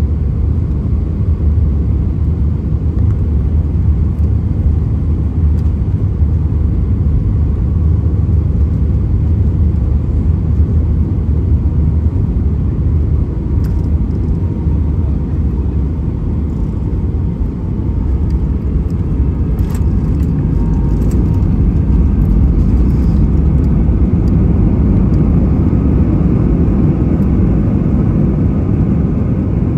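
Cabin noise inside an Airbus A319-131: a steady low rumble of its IAE V2500 engines and the airframe, with a few faint clicks and rattles around the middle. The rumble grows a little louder in the last few seconds.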